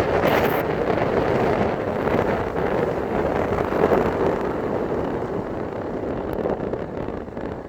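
Audi 2.7 TDI V6 diesel engine running under load, with a steady mechanical din and wind noise on the microphone. The owner presents it as an engine knock that appears under load.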